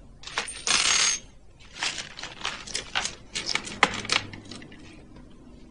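Metal jewellery (rings, a gold watch and chains) clinking and clicking as it is set down piece by piece on a hard counter, a string of light sharp clicks over a couple of seconds. It follows a brief loud rushing noise about a second in.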